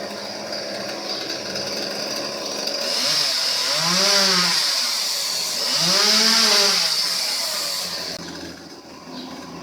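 Chainsaw running, revved up and back down twice in the middle, then dropping back to a lower run.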